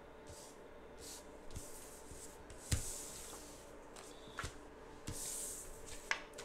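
Tarot cards handled and sorted by hand: soft swishes of cards sliding against one another and light taps as they are set down, the sharpest tap about three seconds in.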